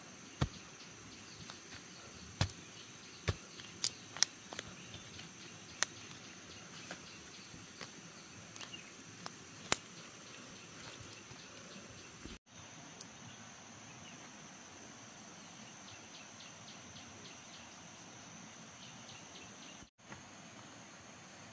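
Steady high-pitched insect chorus, with sharp knocks scattered through the first half.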